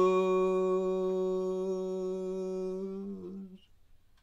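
A man's unaccompanied voice holds one long, steady note at the end of the sung word 'home', then it wavers briefly and stops about three and a half seconds in.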